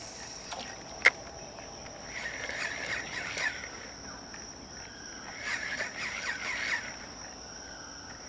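Insects droning in one steady high-pitched tone, with a single sharp click about a second in and two spells of chattering calls.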